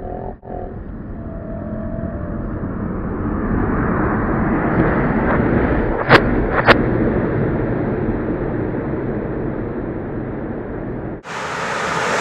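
Dodge Durango SUV driving up and past at speed, its tyre and engine noise swelling, with two sharp cracks about half a second apart partway through as its wheels run over a hummingbird feeder.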